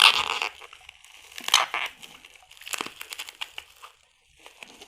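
Packaging being crinkled and pulled open by hand in several short bursts, loudest at the start and again about a second and a half in.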